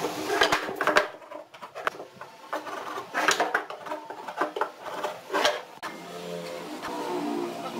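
Wooden sticks and a metal marking gauge handled on a wooden workbench: a series of sharp knocks and clicks as pieces are set down and the gauge is moved. About six seconds in, a steadier machine hum with several wavering tones takes over.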